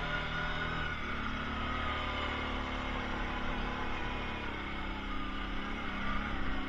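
Kawasaki Prairie ATV running, its engine and drive giving a steady whine whose pitch drifts slowly as engine speed changes.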